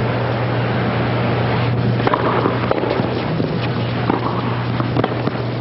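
Tennis rally: racquets striking the ball about once a second, beginning about two seconds in, over a steady low hum.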